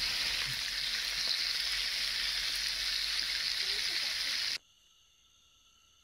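A steady sizzling hiss that cuts off suddenly about four and a half seconds in, leaving faint, steady insect calls.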